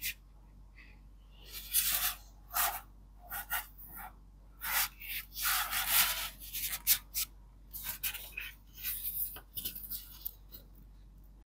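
Paper and book handled by hand: rustling and brushing in many short, irregular bursts, like pages and wrapping being moved and rubbed.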